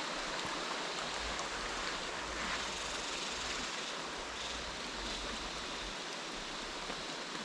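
River water flowing steadily over stones, a constant even hiss.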